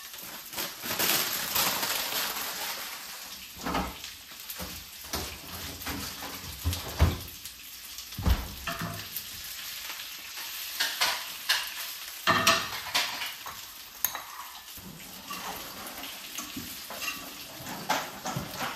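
Fresh spinach leaves sizzling in hot oil in a frying pan as they wilt. Sharp knocks and clatter come again and again as the leaves are stirred and the pan is handled.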